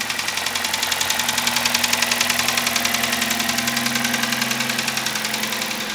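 Kia Rio's G4FC 1.6-litre four-cylinder engine idling with a loud, fast, even knock. The knock is the damage done after the electrode broke off a spark plug.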